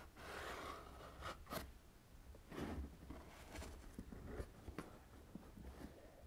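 Cardboard headphone box being opened and handled: the flap and packaging slide and rustle, with scattered light taps and clicks.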